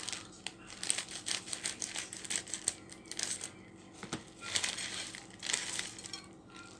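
Foil sachet crinkling and crackling as it is handled and opened, then shaken so that crushed potato-chip pieces pour out of it near the end.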